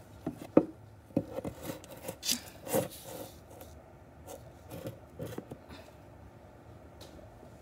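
Close rubbing and scraping with a few sharp taps and knocks, from a hand handling the phone right by its microphone; the handling noise thins out over the last couple of seconds.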